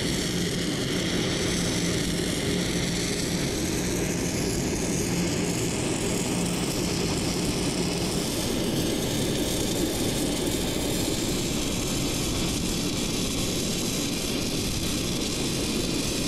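MIG welder's arc crackling steadily as a bead is laid around a steel pin boss, over a steady low hum.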